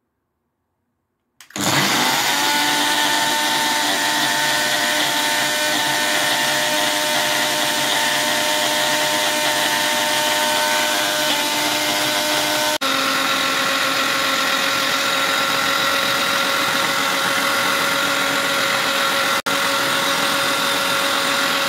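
Ninja Auto-iQ cup blender switched on about a second and a half in, its motor spinning up and then running at a steady high whine as it purées spinach and pineapple chunks. The sound breaks off for an instant twice.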